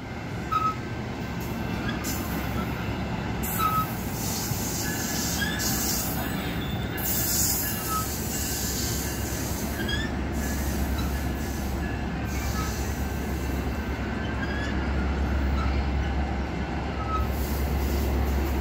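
Exo commuter train's bilevel coaches rolling past: a steady rumble of wheels on rail with high-pitched wheel squeal coming and going. A deeper drone strengthens about halfway through.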